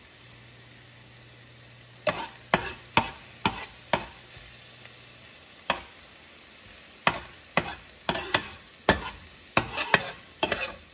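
A stainless steel spoon scrapes and knocks against a nonstick frying pan while stirring minced garlic and onion in a little hot oil, over a soft sizzle as they brown. The spoon strokes start about two seconds in and come irregularly, one to three a second. A low steady hum runs underneath for the first half.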